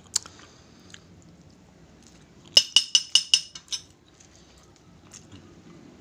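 A metal fork clinking against a cut-glass plate: one clink at the start, then a quick run of about seven ringing clinks about two and a half seconds in.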